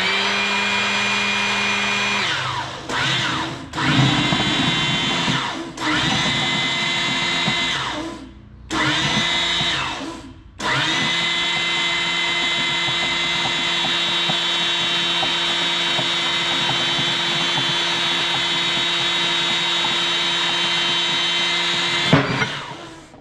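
55-ton hydraulic press's pump running under load as the ram pushes a bead-lock wheel out of its run-flat tire: a steady motor whine. It stops and restarts several times in the first ten seconds, sagging in pitch at each stop, then runs steadily for about twelve seconds before cutting off near the end.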